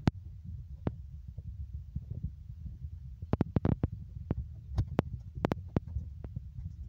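Low, uneven rumble on a handheld phone's microphone, the kind made by wind and handling, with scattered sharp clicks that bunch up about halfway through.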